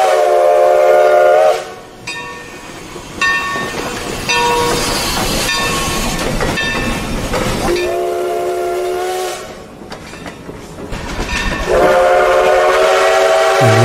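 Steam locomotive's chime whistle blowing several notes at once, cutting off after about a second and a half. Then passenger cars rolling past with clickety-clack, the whistle sounding again for a short blast in the middle and a longer one near the end.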